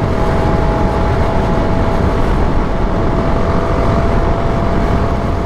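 Motorcycle riding along a multi-lane highway: steady engine and road noise with heavy wind noise, and a faint steady whine over it.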